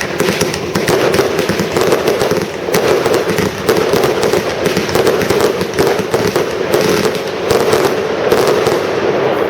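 Two Lesli Camuro Castle firework batteries fired together as the finale: a dense, continuous barrage of rapid shots that keeps up throughout and eases off at the end.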